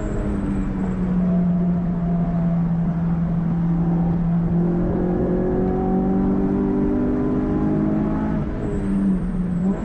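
Renault Clio 182's 2.0-litre four-cylinder engine with a cone filter intake, heard from inside the cabin under track driving. The note sags slightly through a corner, then climbs steadily as the car accelerates, breaking off abruptly near the end.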